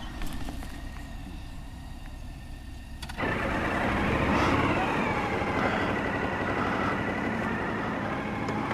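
Quiet petrol-station forecourt rumble, then about three seconds in an abrupt cut to a louder motorcycle engine running, with a steady high whine above it that rises and falls slightly a second later.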